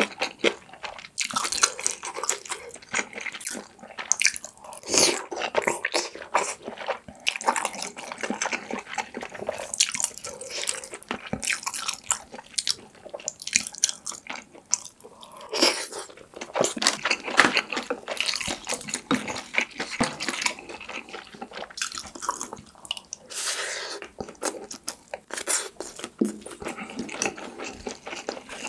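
Close-miked wet chewing of braised kimchi and Spam, with irregular short clicks from wooden chopsticks against the pot.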